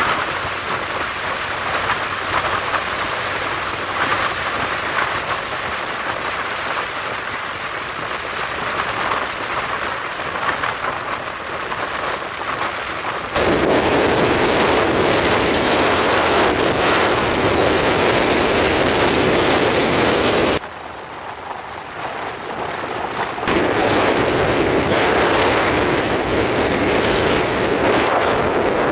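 Wind rushing over the microphone, mixed with road noise, from a camera carried along a road on a moving vehicle. The rush jumps louder about halfway through, dips for a few seconds, then returns.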